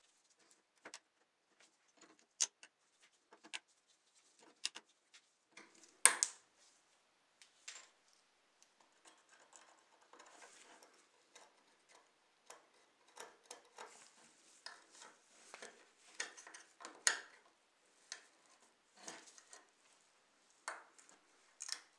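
A small screwdriver scraping and picking packed dirt out of a die-cast model car body: irregular sharp clicks of metal on metal, with short stretches of gritty scraping. The loudest click comes about six seconds in.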